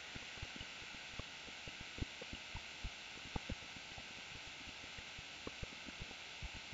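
Faint steady hiss with soft, irregular clicks, several a second, from a computer mouse and keyboard in use.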